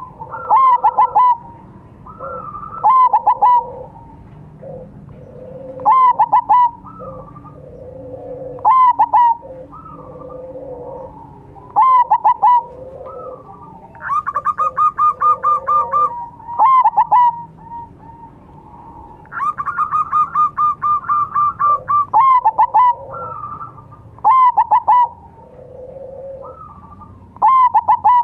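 Zebra dove (perkutut) song: short clipped cooing phrases repeating about every three seconds, with softer, lower cooing between them. Twice near the middle, a longer rapid run of evenly spaced notes lasting about two seconds.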